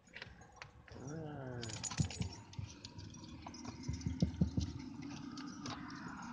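A dog licking a glass window pane while a person's fingers press and tap on the other side: a run of small, irregular clicks and taps on the glass, with a brief squeak that rises and falls about a second in.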